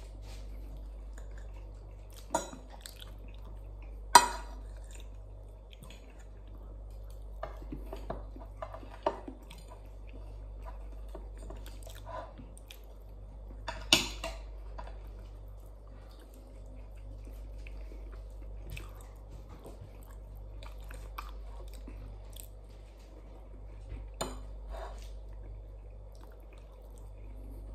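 Close-up eating sounds: chewing and wet mouth noises, with sharp clicks of a metal fork against a plate, the loudest about four seconds in and again about fourteen seconds in, over a steady low hum.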